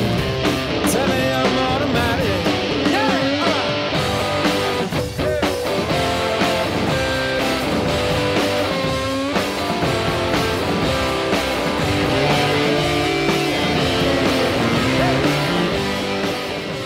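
Rock song with guitar and a singing voice, beginning to fade out near the end.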